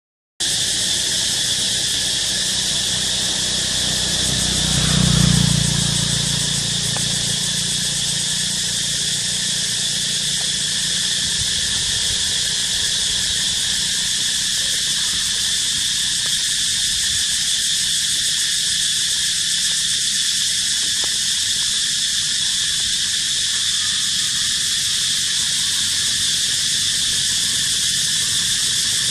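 Steady high-pitched drone of an insect chorus, with a brief low rumble swelling about five seconds in.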